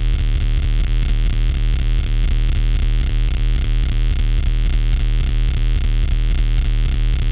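Handmade CMOS 4093 quad-oscillator sound generator droning: a loud, steady, buzzy electronic drone with a rapid pulsing beat, made by several oscillators sounding together as a knob on it is turned.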